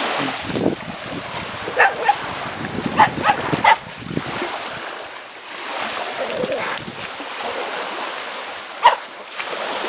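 A Pekingese dog barking at the breaking waves, several short barks between about two and four seconds in and one more near the end. Small waves wash steadily on the sand underneath.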